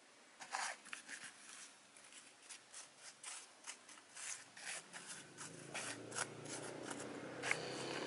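Dry, irregular scratching and rubbing of fingers picking kale seeds out of a palm and sprinkling them onto the soil of a plastic seedling tray, several small scrapes a second.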